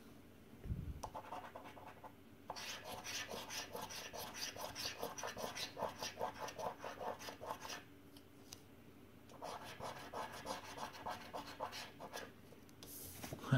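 Scratch-off coating of a paper scratchcard being scraped away in quick repeated strokes, about five a second, with a short pause in the middle before the scraping starts again. A sharp knock comes at the very end.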